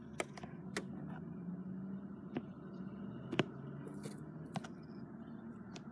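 Trading cards being handled: scattered soft clicks and taps over a faint steady hum.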